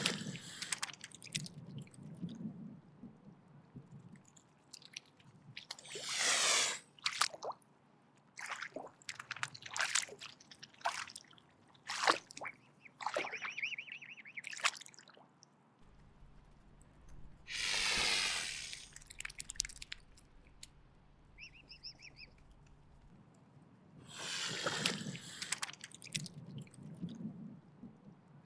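Mute swan hissing as a defensive threat: four long breathy hisses, each about a second, spread through the stretch, with short wet clicks and snaps between them.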